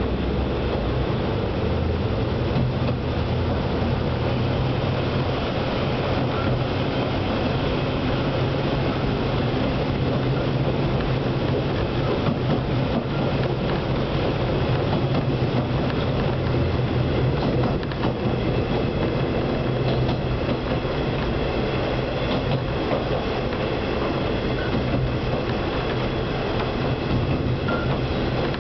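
Diesel railcar running at steady speed, heard from inside the passenger cabin: a steady drone from the diesel engine under the noise of the wheels on the rails.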